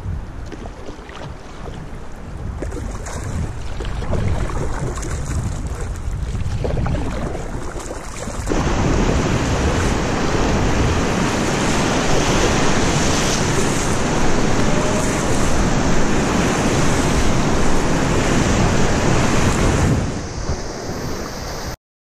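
Wind on the microphone and water washing around a canoe's hull on flat water. About eight seconds in, a sudden change to the loud, steady rush of whitewater rapids and breaking waves around the boat, which cuts off abruptly just before the end.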